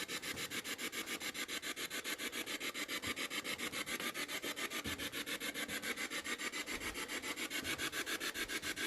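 Ghost-hunting spirit box sweeping through radio frequencies: choppy white-noise static pulsing about eight times a second.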